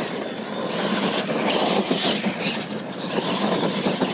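Radio-controlled monster trucks racing side by side across a dirt track: their motors and drivetrains run hard while the big tyres churn the dirt.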